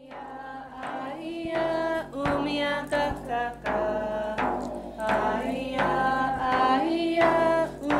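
Closing music: a melody of held notes over a steady low drone, with drum strikes.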